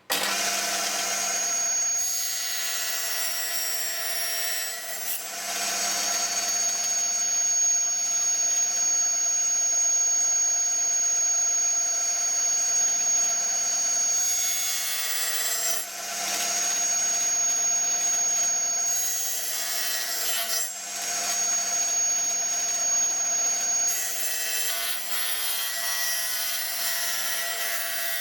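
Table saw running and ripping about 5 mm off a strip of timber, a steady motor whine whose sound shifts every few seconds as the wood is fed through the blade.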